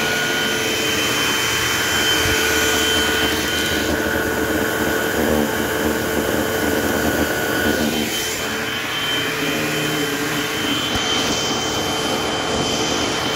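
Eureka AirSpeed multi-cyclonic vacuum cleaner running steadily, with a constant whine over its motor and airflow noise. The sound shifts about four and again about eight seconds in, as the cleaner is worked over the floor.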